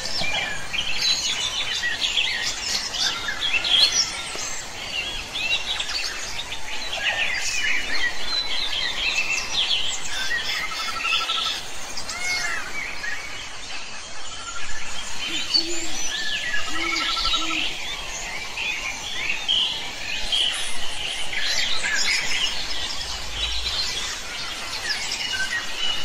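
A chorus of wild birds: many overlapping high chirps and song phrases throughout, with a couple of short trills and three short low calls a little past the middle.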